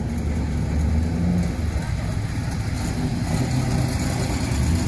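First-generation Chevrolet Camaro's engine running at a low, steady rumble as the car creeps forward at low speed.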